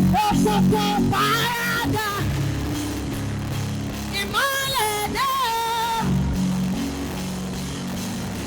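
Live worship band music: sustained low chords held under a bending melodic lead line that comes in twice, at the start and again around four to six seconds in.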